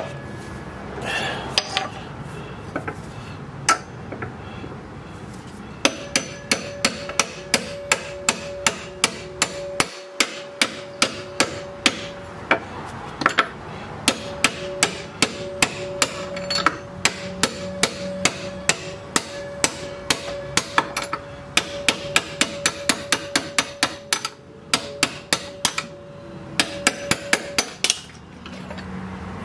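Hand hammer striking a drift held against the rusted rear lower control arm bolt of a 2005 Jeep Grand Cherokee, driving the bolt out. A few separate blows come first, then from about six seconds in steady metal-on-metal hammering at about two to three blows a second, with a ringing tone under it, stopping shortly before the end.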